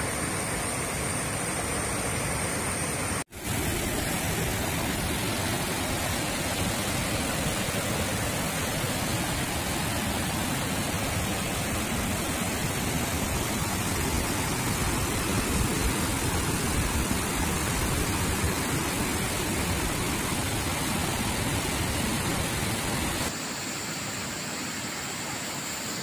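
Water rushing and splashing over a rocky waterfall and cascades: a steady, full hiss of falling water. It breaks off for an instant about three seconds in, and it is quieter near the end.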